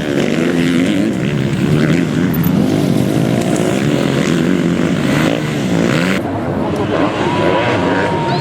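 Several MX2 motocross bikes' engines revving hard and shifting as they race on the track, their overlapping pitches rising and falling continuously.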